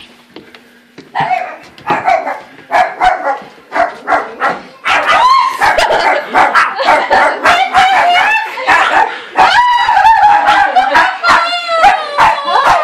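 A dog whining and yipping in short high cries that build from about a second in into near-continuous, wavering whines from about five seconds in, the sound of an excited dog greeting someone.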